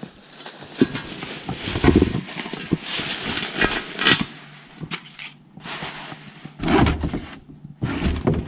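Irregular rustling and scraping handling noise with a few short knocks, over a faint steady low hum.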